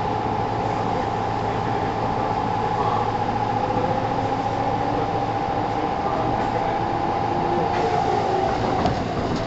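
Running sound inside a Kintetsu 1000 series electric train car: steady rumble of the wheels on the track with a whine from the running gear, and a fainter second tone slowly falling in pitch.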